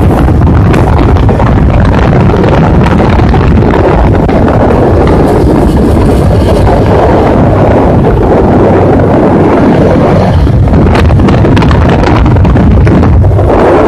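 Bajaj Pulsar 200NS single-cylinder engine running steadily while being ridden at about 80 km/h, heavily mixed with wind noise on the microphone; loud throughout.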